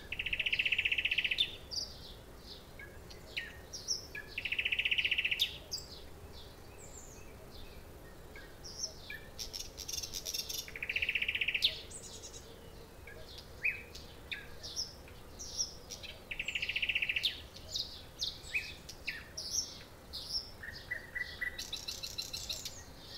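A nightingale singing: loud, rapid, rattling trills of about a second each, repeated every five seconds or so, separated by short varied whistles and chirps.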